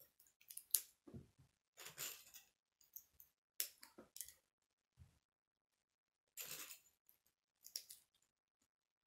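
Plastic K'nex pieces being handled and snapped together: a string of short clicks and rustling scrapes with pauses between them.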